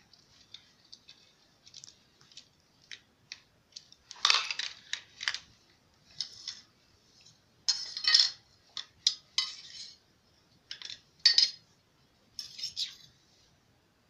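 Metal spoons and a knife being handled and set down on a tiled floor: a run of irregular clinks and clatters, loudest about four, eight and eleven seconds in.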